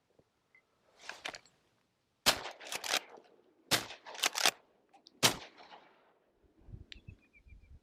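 Benelli shotgun fired three times at ducks about a second and a half apart, with fainter sharp cracks in between; the shots miss.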